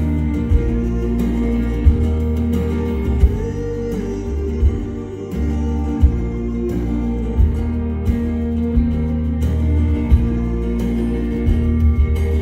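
Live folk band playing an instrumental passage of the song: acoustic guitar, electric bass and drums, with a drum hit about every second and a half under held tones.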